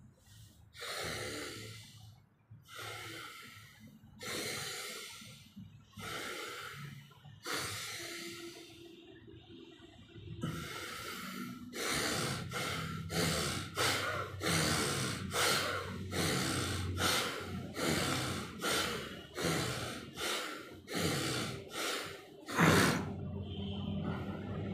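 A man's forceful pranayama breathing through the nose: a few slow, deep breaths, then from about ten seconds in a fast run of sharp breaths, roughly two a second, with one louder breath near the end.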